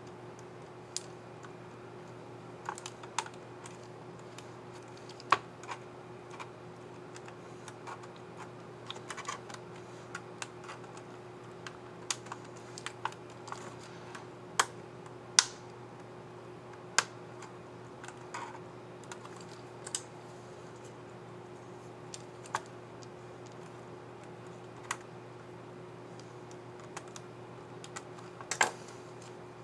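Irregular plastic clicks from an Asus Q502L laptop keyboard's keycap and scissor mechanism being handled, fitted and pressed. Light taps are spread unevenly, with a few sharper, louder clicks among them.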